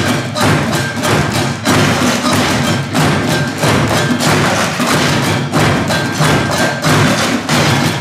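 Percussion ensemble playing a dense, steady rhythm of hits on found objects, such as plastic wheelie bins struck with sticks and cardboard tubes, along with drums.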